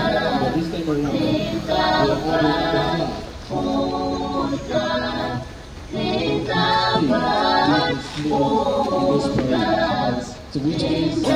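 A large group of voices chanting in unison in short phrases, each about two seconds long with a brief pause between them.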